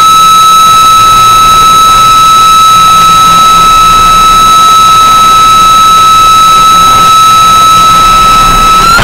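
Loud guitar-amplifier feedback: one shrill tone held at a single pitch with overtones above it, over a bed of noise and low hum.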